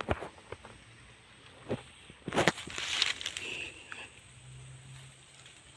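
Rustling and sharp crackles in dry grass and leaf litter as caught snakehead fish are handled on the ground, the loudest crackle about two and a half seconds in. A low steady hum comes in about four seconds in.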